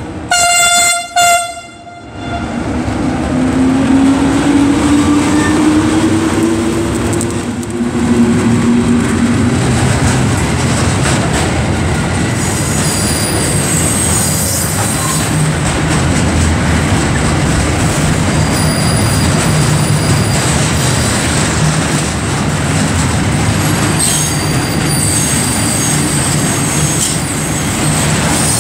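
E652 electric locomotive's horn sounding two quick blasts as a greeting. A long freight train then rolls past, with a steady rumble of wagon wheels, a rising whine a few seconds in, and high-pitched wheel squeal coming and going.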